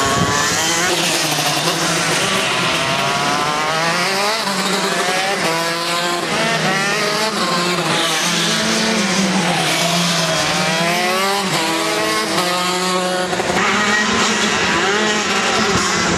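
Several 125 cc two-stroke kart engines racing on the circuit, overlapping, their pitch rising and falling again and again as the karts accelerate and lift off through the corners.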